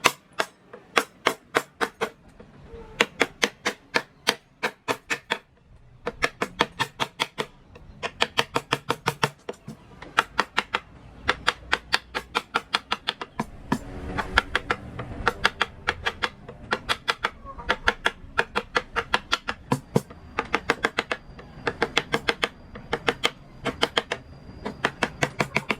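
Wooden mallet rapidly tapping a carving chisel into wood, in quick runs of sharp strikes with short pauses between them.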